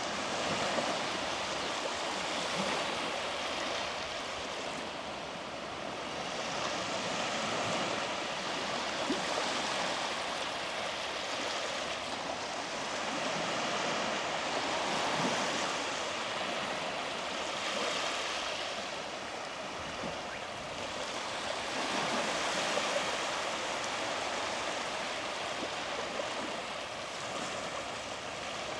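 Small sea waves breaking and washing up a beach, a steady rush that swells and eases every few seconds.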